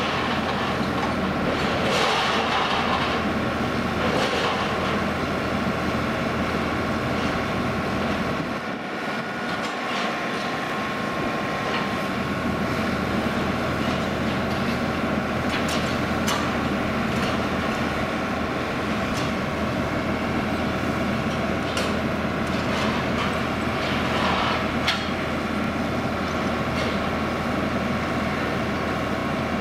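Rail-yard machinery running with a steady drone of several held tones, broken every few seconds by sharp metallic clanks and knocks.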